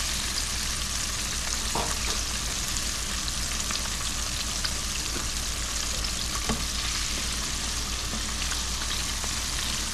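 Frog legs deep-frying in hot oil: a steady sizzle with small crackles and pops scattered through it.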